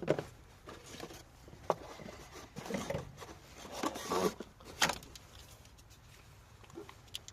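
Handling noises from work on a car's ignition parts: a few scattered clicks and knocks with some rustling.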